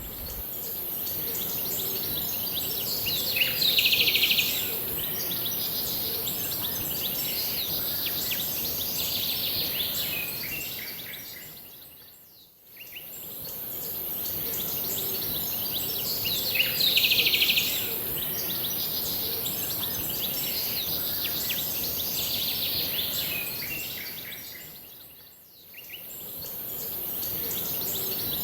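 Birds chirping and calling over a steady high-pitched hiss. The sound fades out and comes back about every 13 seconds with the same calls repeating, as a looped nature-sound track does.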